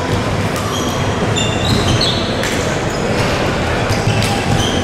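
Basketball game play on an indoor court: many short, high sneaker squeaks and a few sharp ball bounces over a steady din from the hall.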